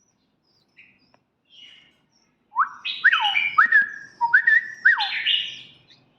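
Red-whiskered bulbul giving a couple of faint short chirps, then, about two and a half seconds in, a run of loud whistled song notes with quick rising and falling glides that stops shortly before the end.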